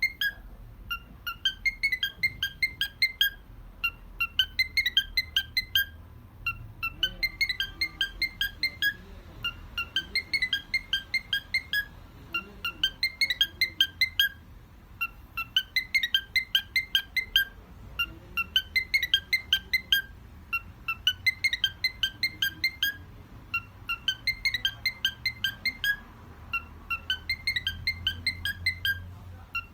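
Cockatiel whistling an imitation of an iPhone ringtone: short phrases of quick, clear notes repeated over and over, with brief pauses between phrases.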